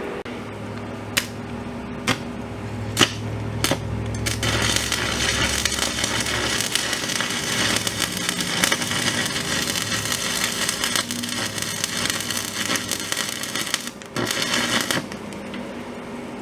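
Stick (arc) welder with a flux-coated rod: a few sharp crackles as the arc is struck, then a steady frying crackle of the arc running for about ten seconds. It breaks off briefly, crackles again for about a second, and stops; a low welder hum sits under the start.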